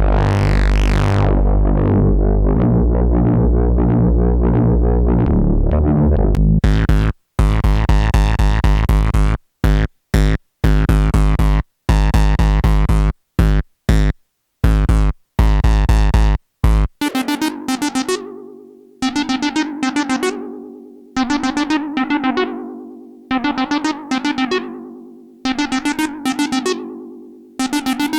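Dreadbox Typhon analog monosynth playing factory presets with no other sound. A dense, sustained bass sequence gives way at about seven seconds to choppy short notes broken by silent gaps. From about seventeen seconds it plays plucked, keys-like notes that die away, repeating about once a second.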